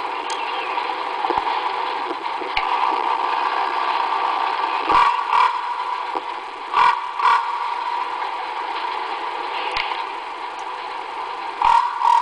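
Common raven calling in three pairs of short harsh calls, about five seconds in, about seven seconds in, and at the very end, over a steady hum and hiss from the recording machine.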